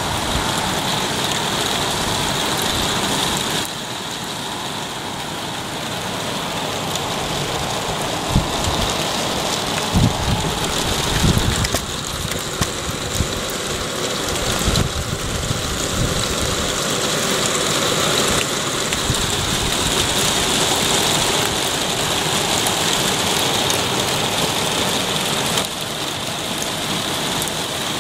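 Heavy rain falling in a steady hiss, with a few low thumps near the middle.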